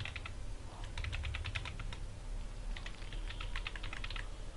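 Computer keyboard typing: three short runs of quick keystrokes with pauses between them, faint.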